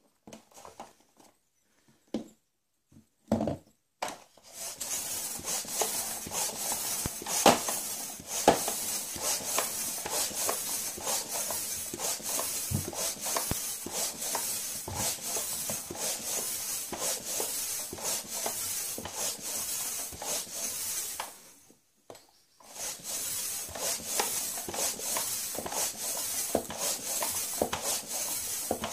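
Ball pump inflating a Select football through a needle: quick repeated pump strokes with hissing air, pausing briefly about two-thirds of the way through and then starting again. A few light handling knocks come before the pumping starts.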